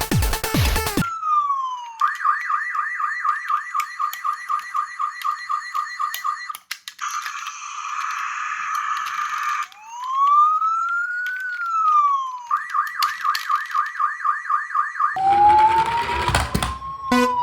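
Toy emergency-vehicle minicar's electronic siren cycling through its patterns: a falling sweep, a fast warble, a noisy stretch, a slow rise-and-fall wail, then the fast warble again. Background music plays for the first second and comes back near the end.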